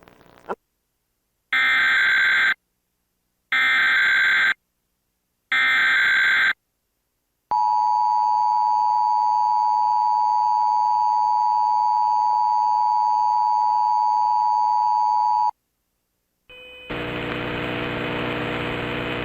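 Emergency Alert System test tones off a TV broadcast. First come three one-second bursts of the SAME digital header data, each followed by about a second of silence. Then the EAS attention signal follows: a steady two-tone alarm at 853 and 960 Hz, held for about eight seconds before it cuts off suddenly.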